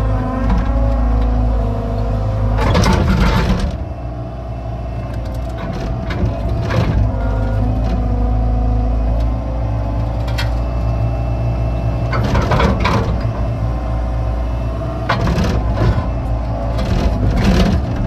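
Excavator's diesel engine running steadily under digging load, with several short clanks and scrapes as the bucket works the ditch, the longest about three seconds in and a cluster near the end.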